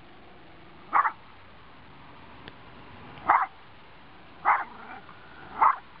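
Small Schnorkie dog barking four times in short, sharp barks, unevenly spaced, at a remote-control boat.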